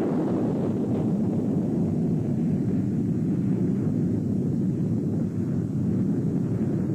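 A steady low rumbling noise.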